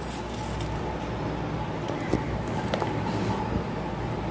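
Steady low background hum, with a few faint clicks of a steel spoon against a plastic tub as soft palm-fruit pulp is scooped out, about two seconds in and again shortly after.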